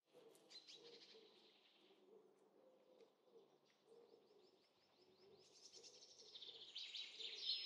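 Faint birdsong: scattered high chirps, then a rapid trill of repeated short notes about halfway through, with more calls growing louder near the end.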